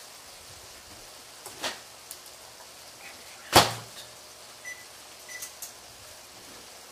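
Microwave oven door handled, shutting with a sharp clunk about halfway through, followed by two short electronic beeps.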